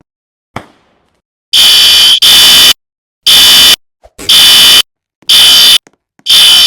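Fire alarm sounding: loud, shrill, buzzy blasts about half a second long, repeating roughly once a second from about a second and a half in, after a single click.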